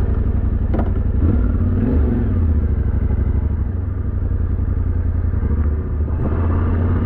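Yamaha Ténéré 700 motorcycle's parallel-twin engine running steadily, a deep pulsing drone that starts abruptly.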